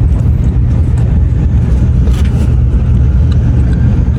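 Steady low rumble of a Shinkansen bullet train running, heard inside the passenger cabin, with a brief higher hiss about two seconds in.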